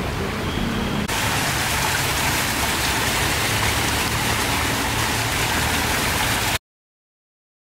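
Small rock waterfall splashing into a garden pond: a steady rush of falling water. It starts abruptly about a second in and cuts off to silence near the end.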